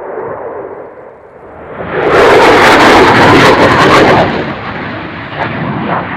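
Dassault Rafale's twin M88 jet engines roaring past at low level: the noise swells sharply about two seconds in, holds very loud and crackling for about two seconds, then fades, with a smaller swell near the end.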